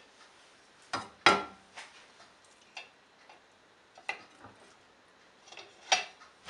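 Cooking utensils clicking and knocking against a saucepan as fish are laid into the curry, about eight separate taps with the loudest about a second in.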